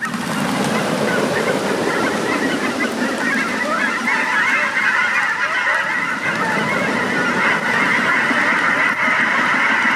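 A large flock of birds calling all at once: a dense, steady din of many short overlapping calls with no break.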